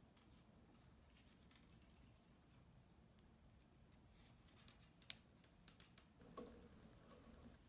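Near silence, then several faint, sharp clicks in the second half: metal knitting needles clicking against each other while purl stitches are worked.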